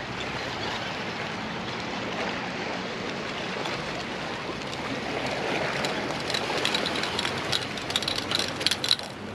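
Small waves washing and sloshing against granite jetty boulders, a steady wash of water, with a run of sharp clicks and taps over it in the last few seconds.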